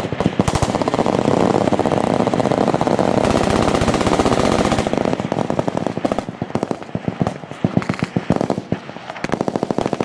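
Many machine guns firing at once: a dense, unbroken stream of shots for about the first five seconds, then thinning to separate bursts and single shots.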